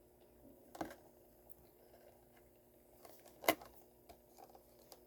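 A few light clicks and taps of a collectible die-cast toy car being handled, the sharpest about three and a half seconds in.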